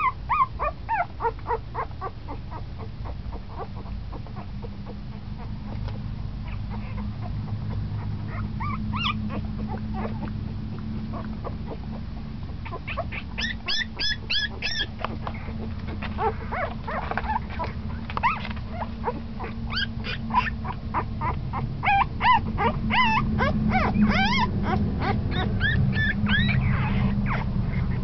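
Ten-day-old San'in Shiba puppies squeaking and whimpering in runs of short, high calls, busiest in the second half, over a steady low hum.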